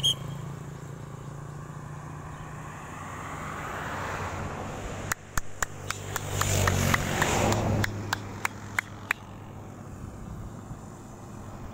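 Motor vehicle running by on the road: a steady low engine hum under a rush of noise that swells and fades twice. About a dozen sharp clicks come in the middle stretch.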